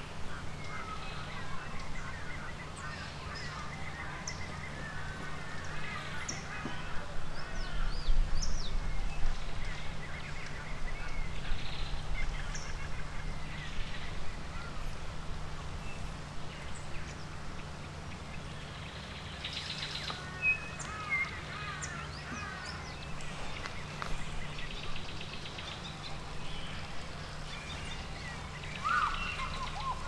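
Several birds calling and chirping in the background, short high calls and trills scattered throughout, over a steady low hum. A low rumble swells about eight seconds in and fades a couple of seconds later.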